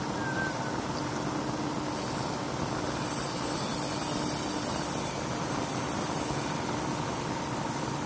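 Crankshaft grinding machine running, its wheel regrinding a journal of a Ford V8 crankshaft under coolant: a steady, even grinding noise with a faint hum.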